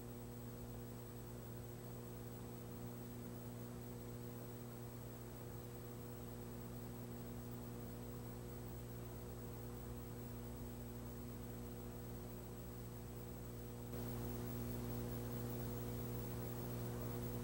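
Steady electrical mains hum, several low tones with a faint thin high whine and hiss over them, on an old video recording's sound track. It steps up slightly in level about fourteen seconds in.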